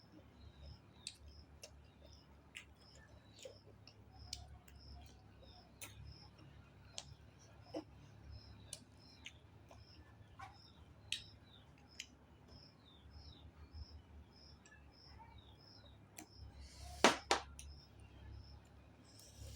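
Close-miked eating sounds: soft chewing with scattered mouth and utensil clicks, and two louder sharp cracks near the end. A faint high chirp repeats about twice a second behind them.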